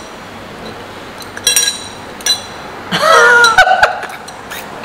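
A glass bottle clinking and ringing a few times as it is handled, with a woman's short laugh about three seconds in.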